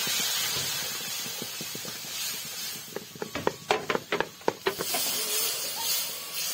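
Water added to masala frying in an aluminium pot, hissing hard as it turns to steam. A metal ladle stirring the pot knocks against it in a quick run of sharp clicks about three to five seconds in.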